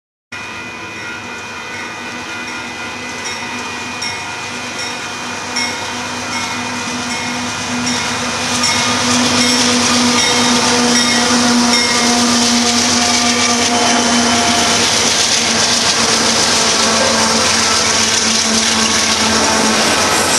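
Union Pacific diesel locomotive passing close by with its engine droning, growing louder about eight seconds in, then the steady noise of freight cars rolling by. A grade-crossing bell rings about three times a second in the first half.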